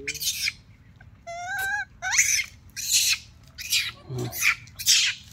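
Young rhesus macaque squealing and screeching while begging for food: about six short shrill calls in a row, with one longer wavering squeal about a second and a half in that slides up at its end.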